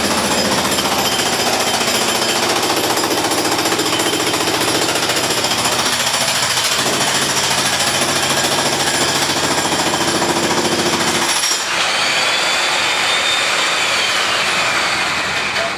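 Jackhammer pounding in a rapid continuous rattle. About eleven seconds in the sound changes abruptly, losing its low end, and a faint falling whine runs through the last few seconds.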